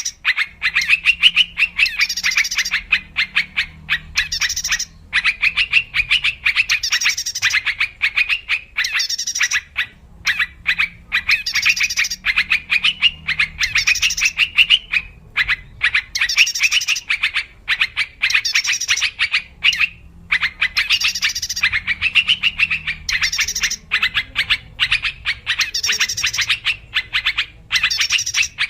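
Yellow-vented bulbuls chattering and calling without pause, busy bubbling phrases repeating every second or two with brief gaps: a lure-call recording meant to draw wild bulbuls in.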